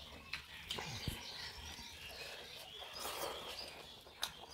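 Eating by hand from steel plates: chewing and wet lip smacks as rice is mixed and eaten, with a few sharp clicks, the loudest about a second in and near the end.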